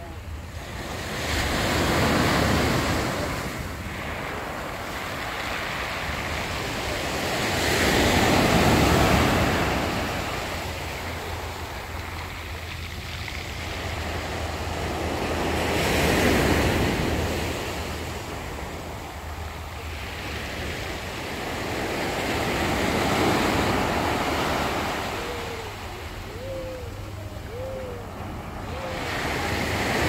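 Black Sea surf breaking on a pebble beach, swelling to a peak and falling back about every six to seven seconds as each wave comes in.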